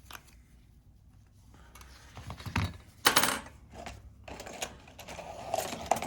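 Small metal tools and parts clicking and clinking on a repair bench, with a louder clatter about three seconds in.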